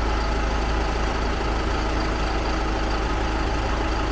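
Heavy truck engine running steadily at a low idle, with a strong low hum.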